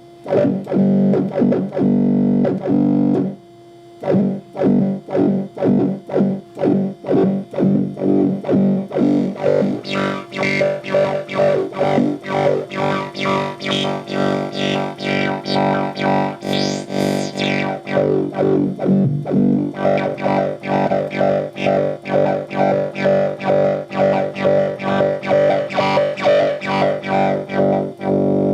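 Teensy 3.6 virtual-analog synthesizer playing a buzzy, harmonic-rich tone chopped into steady pulses, about two to three a second, by its LFO. The sound turns brighter midway and swoops down and back up in pitch around two-thirds through.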